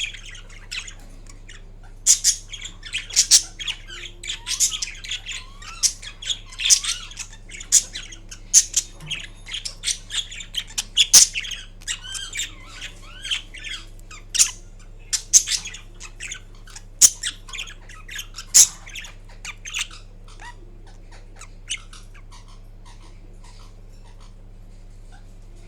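Indian ringneck parakeet chattering drowsily while napping: a quick, uneven run of short high squeaks, clicks and little chirps, with a few brief pitch slides. It thins out to a few faint clicks over the last several seconds.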